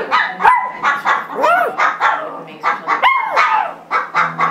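Small dog lying on its back giving a rapid run of short clucking yips, broken three times by a drawn-out howling yelp that rises and falls in pitch. This is its trick of clucking like a chicken.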